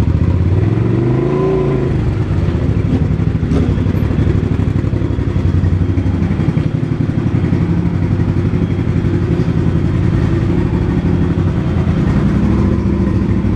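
A motorcycle engine running at idle, with one brief rev that rises and falls about a second in.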